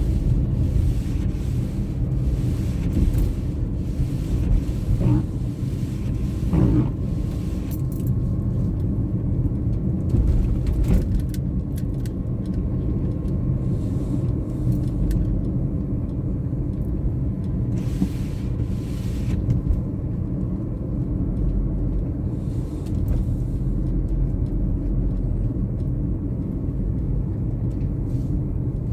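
A car driving on a snowy road: a steady low rumble of engine and tyre noise.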